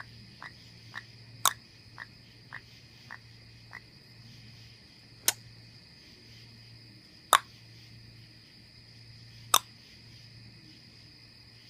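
Sun conure making sharp clicking sounds: a quick run of about half-second-spaced clicks, then three louder single clicks about two seconds apart, over a steady low hum.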